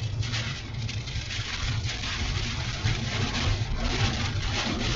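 Heard from inside a vehicle driving slowly on a slick dirt road in a storm: a steady low rumble of tyres and wind, with a dense patter of small ticks against the body.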